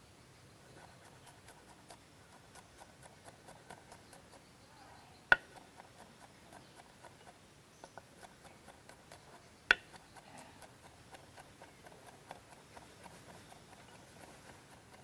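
Kitchen knife chopping garlic on a cutting board: quick, light strokes at about three a second, with two much louder knocks of the blade on the board about five and ten seconds in.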